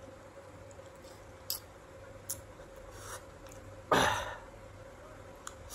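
Eating and handling sounds from sour fruit on a stainless-steel plate: a few faint clicks and taps, then a louder scraping rustle about four seconds in that fades within half a second. A faint steady hum runs underneath.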